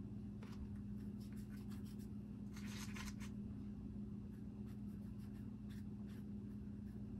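Fine paintbrush stroking paint onto a small hand-held piece: faint, short, scratchy strokes scattered through, with a denser run of them about two and a half to three seconds in. A steady low hum sits underneath.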